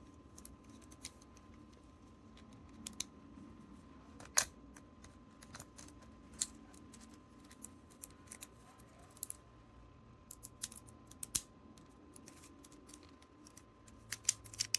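Irregular plastic clicks and snaps of an evil clone Coredem Bakugan toy being folded by hand into its ball form. There is one louder snap about four seconds in and quick runs of clicks near eleven seconds and near the end.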